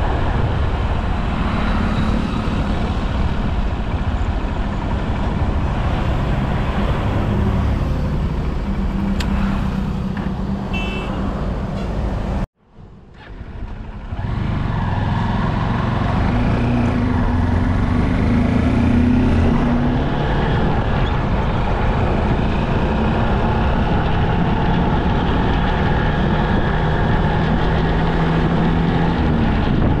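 Steady road traffic and riding noise along a highway: vehicle engine hum, tyre and wind noise. About twelve seconds in the sound drops out almost to silence for a second or so, then returns.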